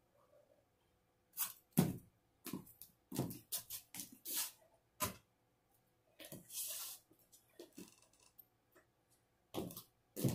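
A quiet, irregular run of sharp knocks and clicks, about one or two a second, with a brief hiss about six seconds in.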